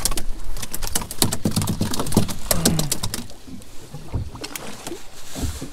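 Irregular clicks and knocks of handling aboard a small fishing boat, dense for the first few seconds and then thinning out.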